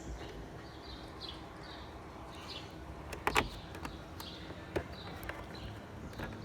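A few light clicks and knocks from handling a CRT video monitor's plastic casing and its power cord as the cord is tucked into the housing, the two sharpest about three and almost five seconds in. Short high chirps repeat faintly behind them.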